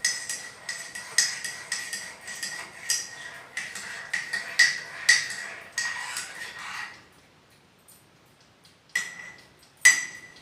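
A spoon clinking quickly and repeatedly against a cup, each strike ringing briefly, as set desi honey is stirred into kahwa. The clinking stops about seven seconds in, and two single clinks follow near the end.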